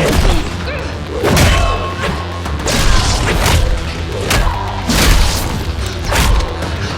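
Fight-scene sound effects: a series of heavy impacts, booms and crashes, about seven in all, over a dramatic music score.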